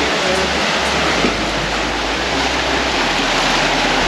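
Steady rush of water and wind past an Outremer 52 catamaran sailing fast under way.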